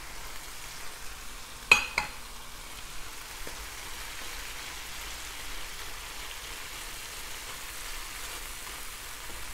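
Lagos spinach sizzling in a hot pepper sauce in an enamelled pan as it is stirred with a wooden spoon: a steady frying hiss. About two seconds in there is one sharp knock against the pan.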